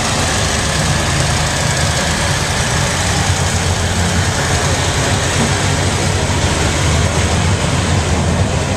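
Massey Ferguson 1155's Perkins V8 diesel engine running steadily under heavy load as the tractor pulls the weight sled down the track.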